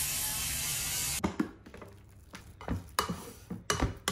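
An electric shaver hisses steadily for about the first second. It stops abruptly, and a few light clacks and scrapes follow as a plastic rice paddle works freshly cooked rice in a rice cooker's inner pot.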